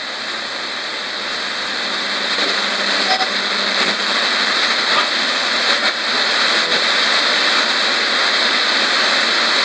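Hiss of static from a portable radio as its tuning dial is swept slowly by hand between stations, growing slowly louder, with a few faint brief blips in the noise.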